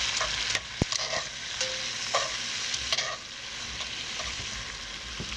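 Vegetables sizzling in hot oil in a cast-iron Dutch oven while a utensil stirs them, with scattered clicks and scrapes of the utensil against the pot. The sizzle drops a little about three seconds in.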